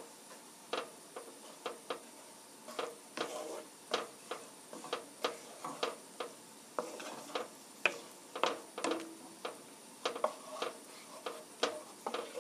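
Wooden spatula stirring a thick cream sauce in a nonstick pan, tapping and scraping against the pan with light clicks about twice a second.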